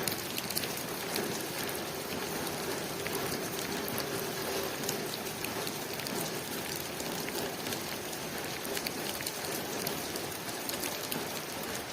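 Steady rain pattering on a window, a dense hiss of drops with many small sharp taps.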